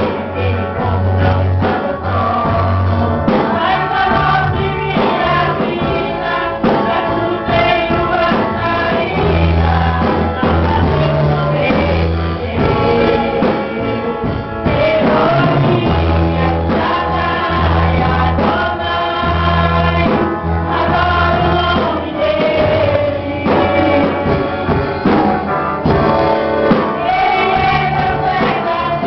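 Women's gospel choir singing together over an instrumental accompaniment with a bass line and a steady beat.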